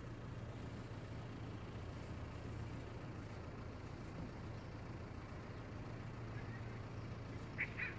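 Steady low hum of street traffic and engines. A couple of short, high chirps come near the end.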